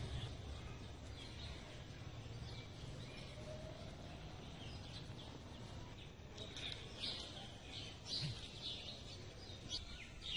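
Faint background noise with small birds chirping: scattered short, high chirps that come thicker from about six seconds in.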